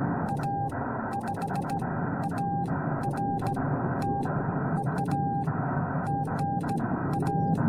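Morse code sent by hand on a straight key: the Yaesu FT-891's steady sidetone beeps in uneven dots and dashes, with a sharp click of the key at each press and release. Underneath runs a constant hiss of band noise from the receiver.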